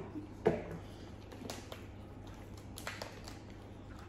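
A few faint cracks and clicks of boiled king crab leg and shellfish shells being broken apart by hand, the sharpest about half a second in.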